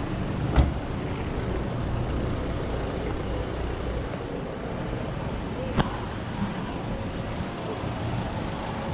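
Kia Bongo 3 truck on the move: a steady engine rumble and road noise. A sharp knock comes about half a second in, and a weaker click near six seconds.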